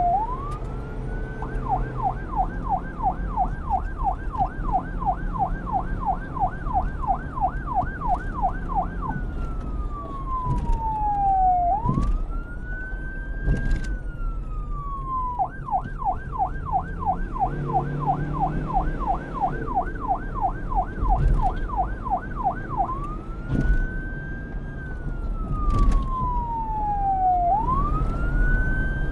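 Police car electronic siren switching between modes: a slow wail that rises and falls, then a fast yelp warbling about three to four times a second for roughly seven seconds, then back to the wail and into the yelp again. A low rumble runs underneath.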